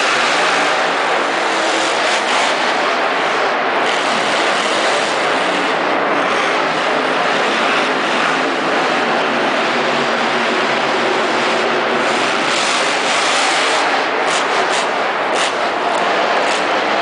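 Monster truck engines running loud and steady in an indoor stadium.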